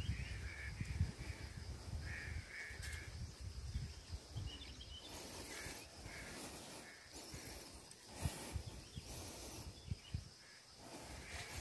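Birds calling outdoors in short repeated notes, over wind and handling rumble on the microphone that is strongest in the first few seconds. A faint steady high hiss runs underneath, with a few soft knocks later on.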